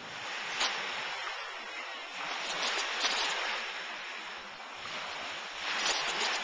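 Small waves washing on the shore, a hiss that swells twice, with a few sharp clicks.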